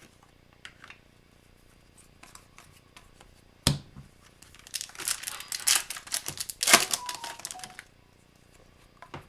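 A hockey card pack's wrapper being torn open and crinkled, about three seconds of noisy ripping and rustling in the second half, after a single sharp tap.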